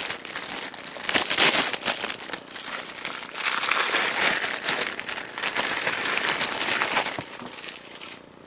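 Packaging around a hair-extension bundle being handled and opened by hand: continuous crinkling and crackling that eases off near the end.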